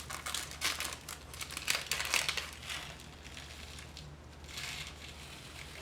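Plastic packaging crinkling as it is handled, in irregular bursts that are busiest in the first three seconds and fainter after that.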